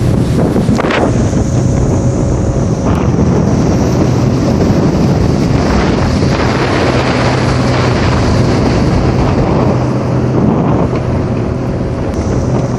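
A motorboat's engine running steadily under way, with heavy wind buffeting the microphone and water rushing past the hull. There are brief louder surges of water noise about a second in, around three seconds, and around six seconds.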